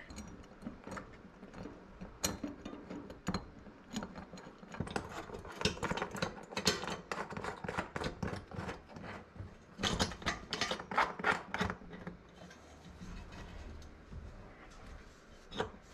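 Nuts and bolts of a roof-rack mounting bracket being tightened with a hand tool: quick metallic clicking in bursts, busiest about five to seven seconds in and again about ten to twelve seconds in.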